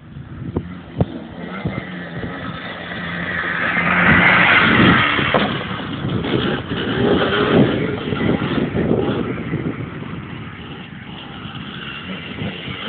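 Yamaha Blaster 200's single-cylinder two-stroke engine revving under throttle. It builds to its loudest about four to five seconds in, surges again a few seconds later, then eases off toward the end.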